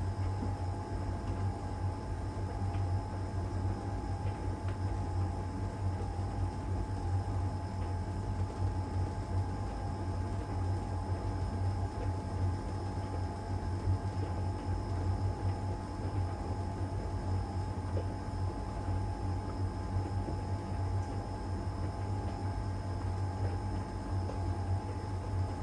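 LG heat pump tumble dryer running in its drying stage, the drum tumbling with the fan and heat-pump compressor going. A steady low hum with a constant mid-pitched whine over an even hiss.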